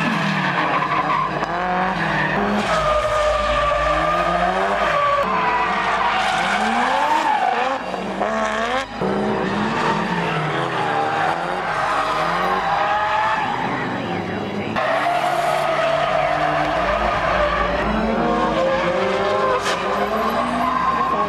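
Drift cars sliding through a corner one after another: engines revving up and down hard as the throttle is worked, with tyre squeal from the sliding tyres. The sound cuts abruptly between cars twice.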